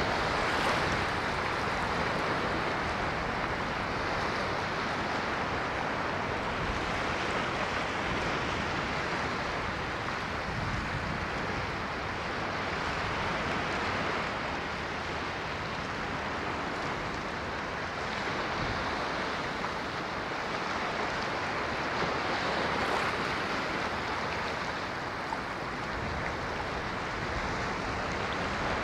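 Ocean waves breaking and washing on a shore, a continuous surf noise that swells gently every several seconds.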